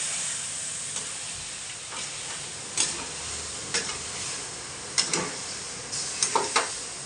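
Chicken and masala frying in a pan with a steady sizzle, while a spoon stirs and scrapes against the pan in short strokes. This is the bhuna stage, with the masala being dry-fried before any water is added.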